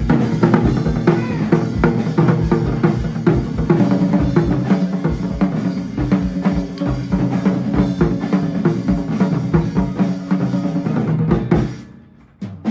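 Live stage drum performance: fast, dense drumming with ringing low drum tones. It breaks off suddenly about a second before the end and comes back in with a strike right at the end.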